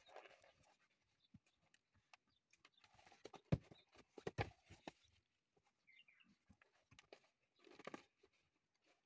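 Faint rustling of a paperback book's pages being turned and pressed flat by hand, with a cluster of sharp clicks and taps in the middle.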